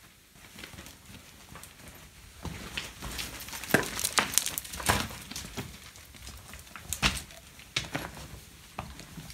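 Footsteps on loose rock rubble: a scatter of uneven crunches, scrapes and knocks as stones shift underfoot, busiest through the middle and again about seven seconds in.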